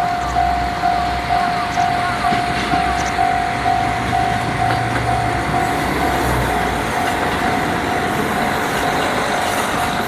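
Japanese level-crossing warning bell ringing steadily, about twice a second, while a diesel train passes over the crossing. The train's low rumble dies away about seven seconds in, and the bell keeps ringing.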